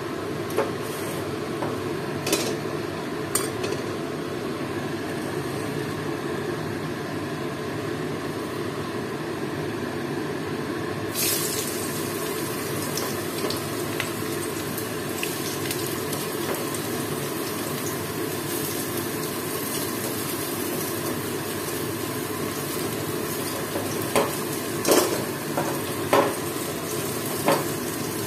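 Hot mustard oil sizzling in an aluminium kadai as sliced onions fry in it. The sizzle turns brighter and hissier about eleven seconds in, with a few knocks of the spatula against the pan near the start and again near the end.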